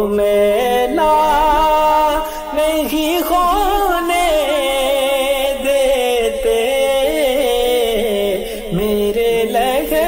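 An Urdu naat sung as a devotional chant, a voice holding long wavering ornamented notes without words, over a steady drone.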